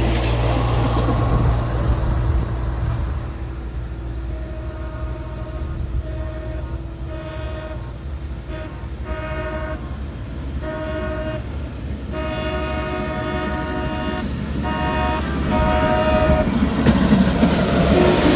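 Air horn on track-gang rail equipment sounded in a string of about ten short and long blasts over a low steady engine rumble. The horn starts about four seconds in and stops a couple of seconds before the end.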